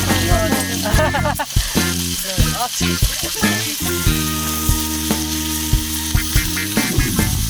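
Firewood crackling and popping as it burns in a stainless-steel fire pit, over background music of held chords.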